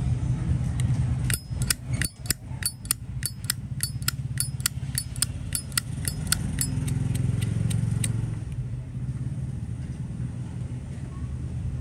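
Zippo lighter lid flicked open and snapped shut over and over: a run of about twenty sharp metallic clicks with a ringing note, about three a second, stopping about eight seconds in. A steady low traffic rumble runs underneath.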